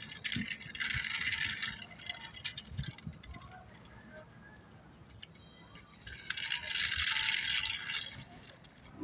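Small die-cast toy car's wheels rolling over rough concrete: a gritty rattling scrape in two stretches, about a second in and again around seven seconds in. Light clicks and taps fall between them.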